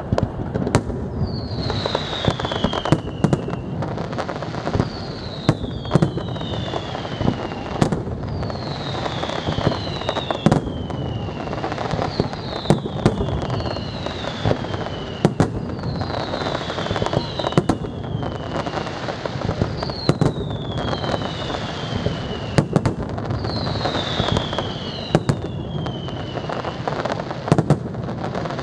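Aerial fireworks display: a rapid run of sharp shell bursts and bangs over a constant crackle, with repeated high whistles that fall in pitch, often two close together, about every two seconds.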